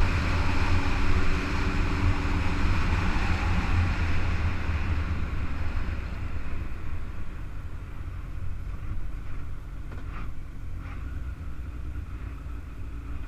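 Rushing wind on the camera microphone of a moving motorbike, with a low rumble and the engine running underneath. The rush eases off after about five seconds and the sound grows quieter.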